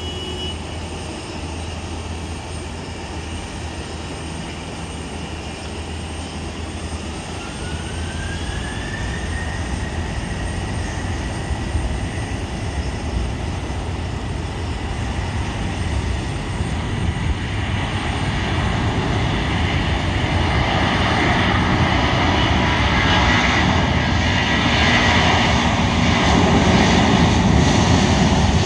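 Airbus A330-323's two Pratt & Whitney PW4000 turbofan engines spooling up to takeoff power. A whine rises in pitch and then holds steady, while the engine roar grows steadily louder as the takeoff roll begins.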